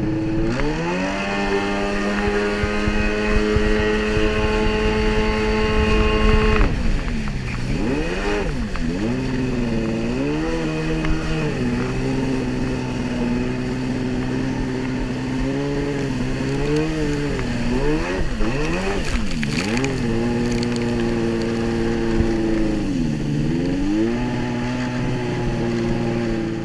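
Personal watercraft engine running at speed over water rushing past the hull. The engine holds a steady high note for the first several seconds, then its pitch drops and climbs again several times as the throttle is eased off and opened through turns.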